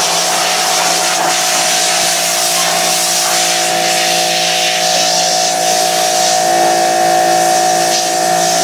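Pressure washer blasting emulsion off a screen-printing screen: a steady motor hum under the hiss of the water jet.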